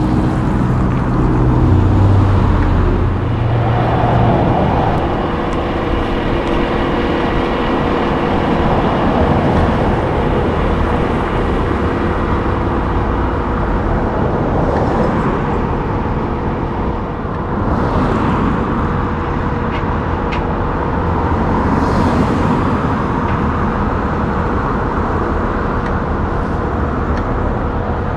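Car carrier's diesel tractor running with its hydraulic deck system: a steady mechanical hum with a steady whine, and a few brief metallic noises from the ramps.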